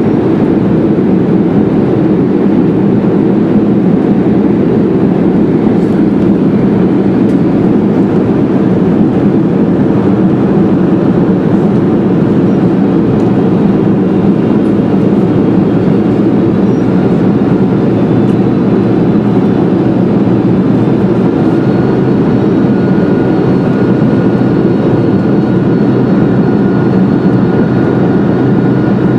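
Steady cabin noise inside a Boeing 747-400 in flight, from the airflow over the fuselage and its four GE CF6-80C2 engines: a deep, even rumble. A faint, steady high whine comes in about three-quarters of the way through.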